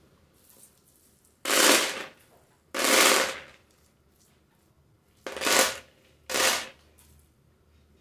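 Handfuls of dry beans swept off a tabletop and pouring into a plastic basin, rattling against the plastic four times, each pour lasting under a second.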